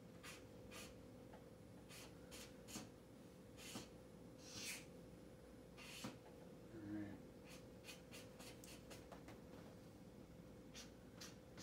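Faint strokes of a felt-tip marker on a large paper pad. Short scratchy strokes come at irregular intervals, with a few longer strokes near the middle.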